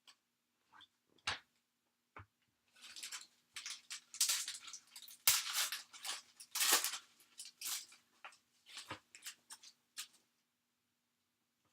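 A trading-card pack's wrapper crinkling and tearing as it is torn open, in a dense run of crackles lasting about five seconds, with a few light clicks of card handling before and after.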